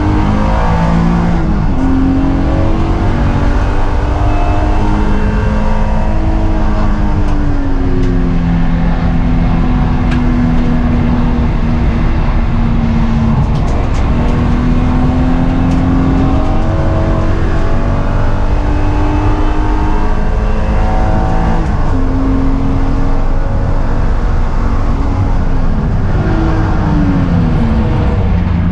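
BMW E36 M3's inline-six engine at full throttle, heard from inside the car's cabin. Its pitch climbs and breaks off again and again as the car accelerates through the gears, then sweeps down steeply near the end as the car slows for a corner.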